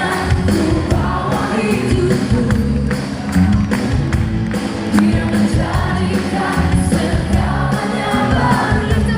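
A live band and singers performing a praise-and-worship song, with drums keeping a steady beat under the sung melody.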